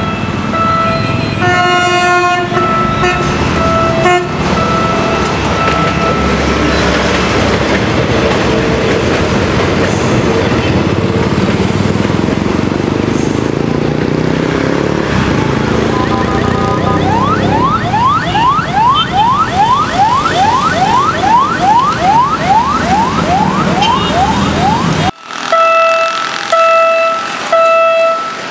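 Level-crossing warning bells ringing in an even ding-ding pattern as a PNR passenger train passes, its rumble and wheel noise filling the middle of the clip. Later a rising electronic whoop repeats about twice a second. After a sudden cut the crossing bells ring again as the barrier starts to lift.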